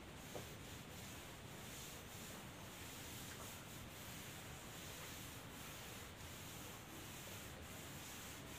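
Faint rubbing of a felt eraser wiping chalk off a chalkboard.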